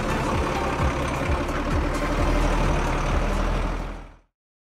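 Truck engine sound effect for a cartoon fire truck: a steady heavy engine rumble that fades out about four seconds in.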